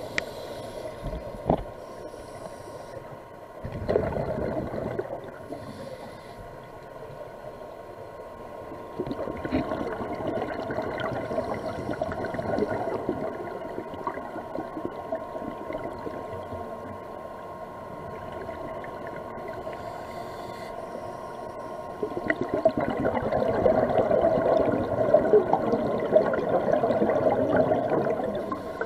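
Underwater sound of a scuba diver's breathing through the regulator, with rushing bursts of exhaled bubbles in stretches of a few seconds, the longest near the end, over a faint steady hum.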